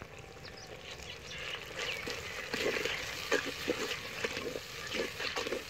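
A metal spatula stirring onions, tomatoes and spices in oil in an earthenware cooking pot. A run of irregular scrapes and knocks against the clay begins about two seconds in.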